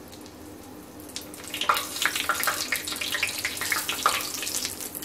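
Hot oil sizzling and crackling in a shallow frying pan around a breadcrumb-coated potato cheese finger as it is turned over with tongs, the uncooked side going down into the oil. The sizzle swells about a second and a half in into a dense run of crackles.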